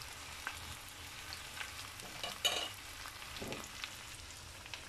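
Sliced courgette and onion sizzling softly in a frying pan, with a few light clicks and knocks.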